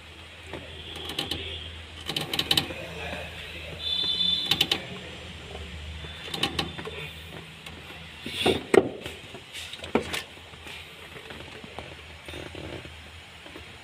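Irregular clicks, knocks and rattles of hands working the plastic fuel pump assembly and its wiring in a car's fuel tank opening, over a low hum. The loudest knocks come about two thirds of the way in.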